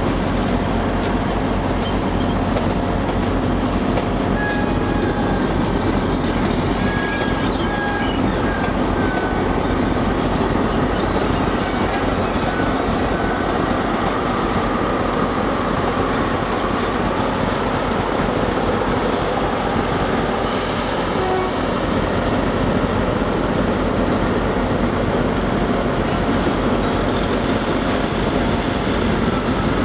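A First Great Western HST (InterCity 125) moving slowly through the station, its coaches rumbling over the track with short high wheel squeals a few seconds in. Diesel engines run steadily underneath.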